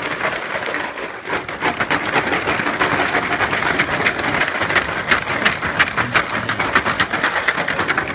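Numbered raffle tiles being shaken in a bag, clattering against each other in a fast, continuous rattle.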